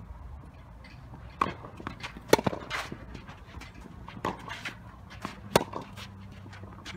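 A tennis rally: sharp racket strikes on the ball and its bounces, spaced about one to two seconds apart. The nearest hits are the loudest, about two and a half and five and a half seconds in.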